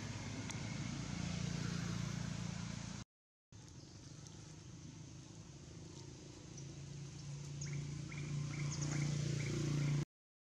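Low, steady engine hum from a motor vehicle that breaks off for a moment about three seconds in, then comes back quieter and grows louder towards the end. A quick series of short, high chirps sounds over it near the end.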